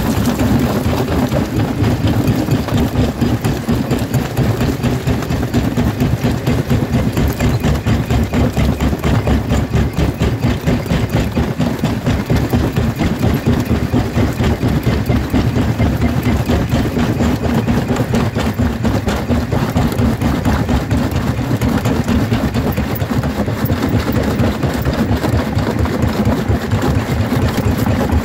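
Jaw crusher running under load: a steady low machine drone with constant rapid crunching and cracking as stone is broken between the corrugated jaw plates.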